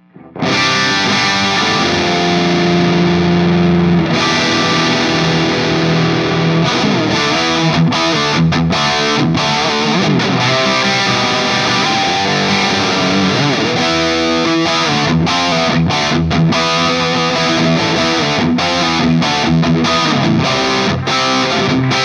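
Electric guitar, a 2006 Gibson Les Paul '58 reissue with Burstbucker pickups, played through a Mesa/Boogie Dual Rectifier Roadster tube amp on channel 3 in Vintage mode, with overdrive. It is heard through a Celestion Vintage 30 4x12 cabinet impulse response with added reverb. It starts about half a second in with held chords, then moves into busier riffing.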